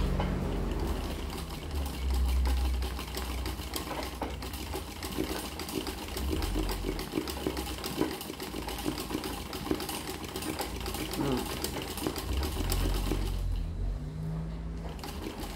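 Sewing machine running fast for hand-guided machine embroidery, the needle stitching through a hooped towel in a rapid, steady patter. It eases off briefly near the end, then carries on.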